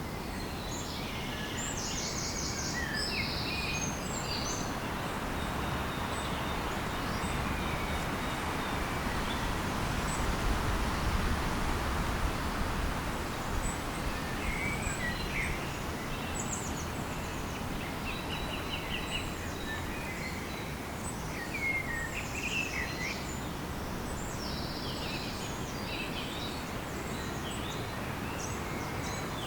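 Several small birds chirping and trilling in short phrases, over a steady rushing background noise.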